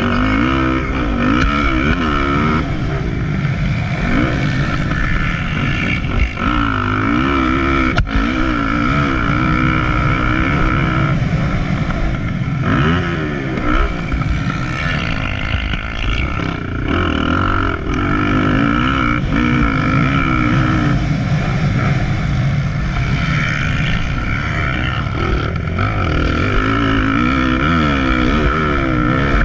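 Motocross dirt bike engine heard from on board, revving up and falling back again and again as the bike rides the dirt track.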